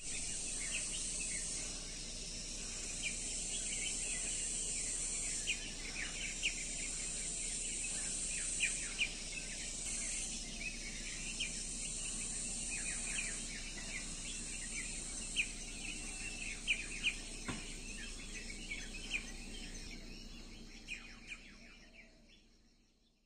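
Small birds chirping in a dawn chorus over a steady high insect hiss; the sound fades out over the last few seconds.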